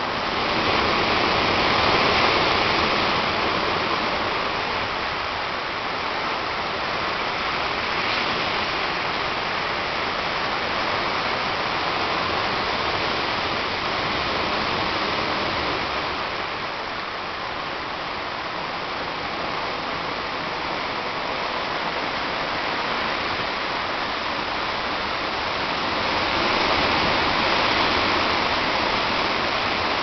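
Strong wind rushing steadily, with gusts swelling louder about two seconds in and again near the end.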